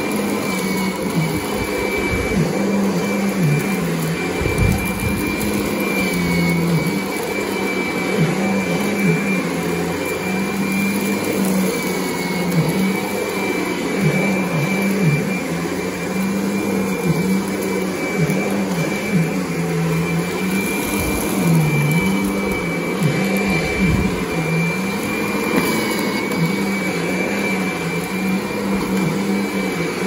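Kirby Sentria upright vacuum running steadily while it is pushed back and forth over carpet. A high whine sits over a low motor hum whose pitch dips now and then.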